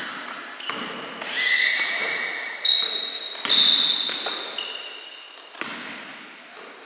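Basketball bouncing on a sports-hall floor as it is dribbled up the court, with a few sharp knocks, and basketball shoes squeaking on the court in several high squeals lasting up to a second. It all rings in a large hall.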